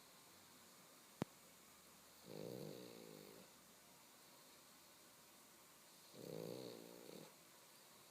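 Pug snoring: two snores about four seconds apart, each lasting about a second, with near silence between them. A single sharp click comes about a second in.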